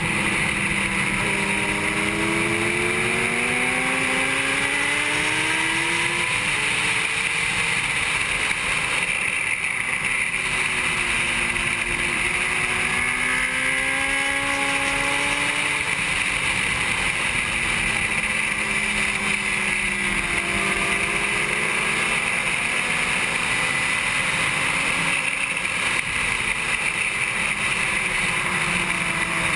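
Onboard sound of a 2007 Honda CBR600RR's inline-four engine at racing speed. The engine note climbs under acceleration and drops back for the corners several times, under a constant rush of wind.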